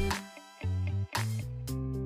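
Background pop music with guitar and a steady beat, briefly dropping out about half a second in and again just after one second.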